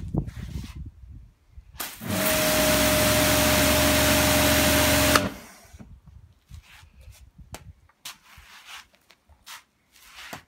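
Kärcher K7 pressure washer running and spraying for about three seconds: a steady hiss over a motor hum that starts and stops abruptly. Light knocks and clicks from handling come before and after.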